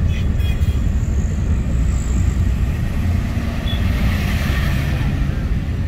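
Steady low rumble of road traffic, with no break or sudden event.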